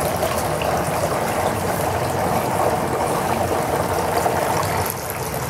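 Steady sound of running water trickling.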